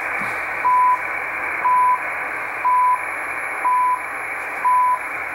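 CHU time signal station on 3330 kHz shortwave, received on an Icom IC-R8500 in upper sideband: its one-second time pulses sound as five short 1 kHz beeps, each about a third of a second long, over steady shortwave static hiss.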